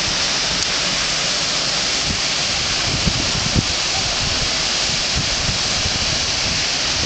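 Steady hiss of wind and surf on a beach, with a few brief low puffs of wind buffeting the microphone about three seconds in.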